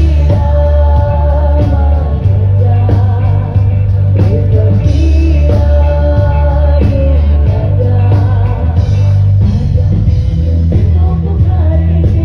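Live band music played loud through a stage PA, with a singer over a heavy, steady bass and drums.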